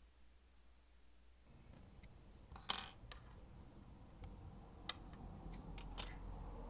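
A few sharp clicks over a low hum: plastic case-splitter tools and the back-plate clips snapping as a phone's thin back plate is pried off its frame. The loudest click comes a little under three seconds in, with smaller ones later.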